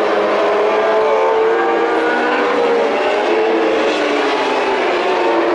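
Several racing motorcycle engines at high revs on the circuit, their overlapping pitches mostly falling as the bikes pass and brake.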